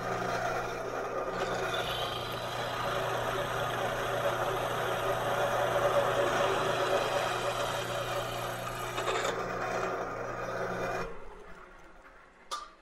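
Powermatic drill press with a Reeves variable-speed drive running at its lowest speed while a 1/2-inch twist drill cuts straight through 1/4-inch steel without a pilot hole: a steady motor hum with a rasping cutting noise on top. The cutting noise stops about nine seconds in as the bit breaks through. The motor cuts out about two seconds later, followed by a short click.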